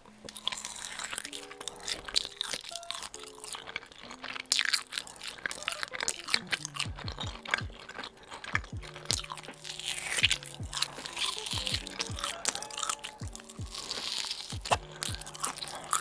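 Close-miked bites and chewing of a giant sausage, a dense run of wet smacks and sharp clicks, over light background music.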